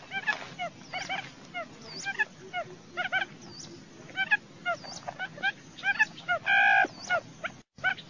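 Buttonquail lure-call recording: many short, hooked chirping notes in quick clusters, with one longer whining call about six and a half seconds in. There is a brief gap in the sound near the end, where the loop joins.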